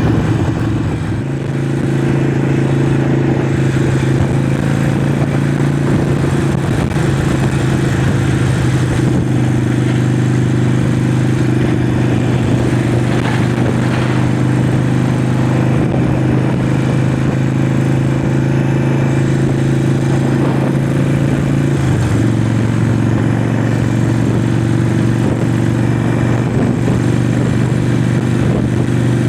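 Harley-Davidson Forty-Eight's 1200cc Evolution V-twin engine running steadily under way. Its note steps up about a second in and drops back about 22 seconds in.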